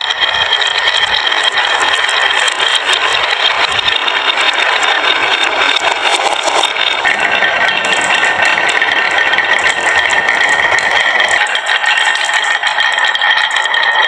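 Many marbles rolling and clattering down a marble run: a dense, continuous rattle of small clicks with a steady rolling whir.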